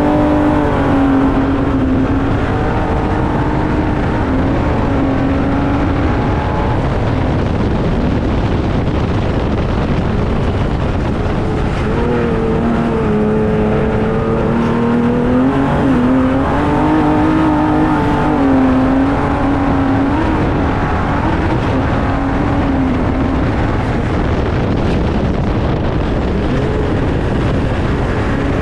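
Ford EcoBoost trophy truck engine running hard, its pitch wavering up and down with the throttle over a constant loud rushing noise.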